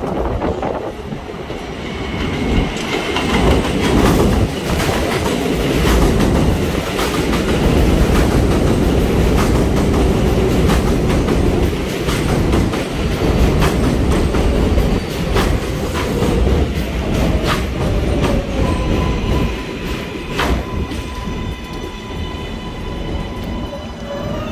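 A 7 line subway train of R188 cars pulling into an elevated station and passing close by. Its wheels clatter over the rail joints above a heavy, steady rumble. A whine falls in pitch as the train slows to a stop near the end.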